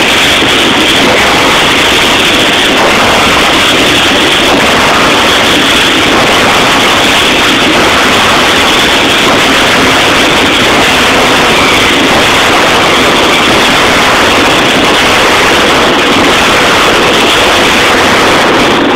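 Lasco double-acting forging hammer drop-forging a 70 kg steel billet at about 1050 °C: a steady, very loud, overloaded din with no clear gaps between blows.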